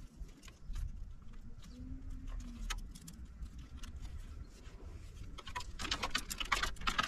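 A dove coos once, a single low arched note about two seconds in. Around it, paracord is handled and pulled tight around a pole with small clicks and rustles that thicken into a dense, louder run near the end.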